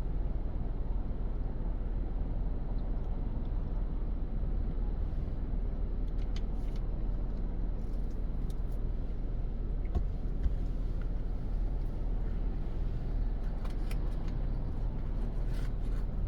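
Steady low rumble of a car driving on the road, with a few faint clicks scattered through it.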